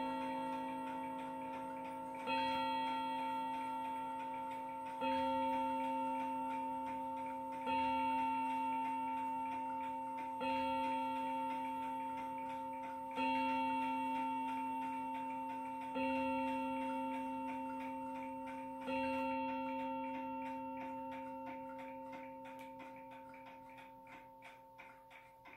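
Mantel clock striking the hour on its gong: seven slow, evenly spaced strokes about 2.7 seconds apart, each ringing on into the next, the last one fading away. The clockwork's steady ticking runs underneath.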